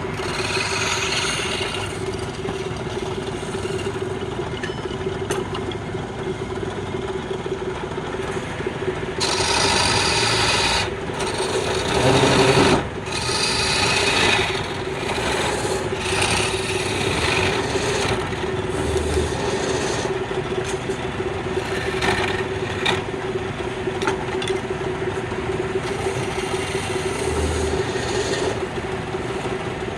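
Wood lathe running with a steady motor hum while a turning tool scrapes and cuts the spinning wood, in uneven passes that get louder about nine seconds in and again around twelve to fourteen seconds.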